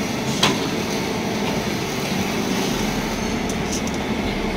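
Steady low hum of workshop machinery, with one sharp click about half a second in and a few faint high ticks later on; the low rumble grows about three seconds in.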